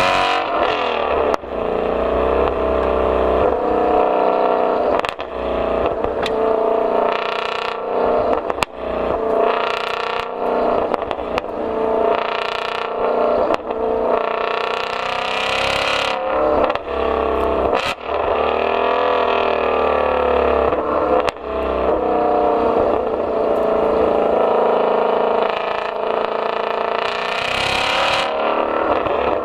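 Ford Mustang Shelby GT350R's 5.2-litre flat-plane-crank V8 under hard acceleration, its note climbing and then dropping back again and again as it runs through the gears, with short sharp cracks at several of the breaks.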